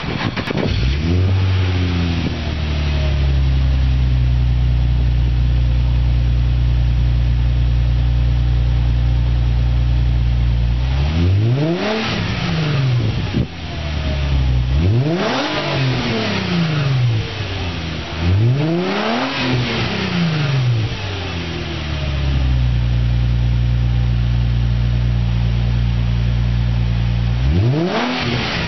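Nissan Skyline 350GT's 3.5-litre V6 breathing through an Xforce cat-back exhaust, idling steadily and revved in quick free-revving blips, about five in all: one right at the start, three close together in the middle and one near the end, each rising and falling back to idle.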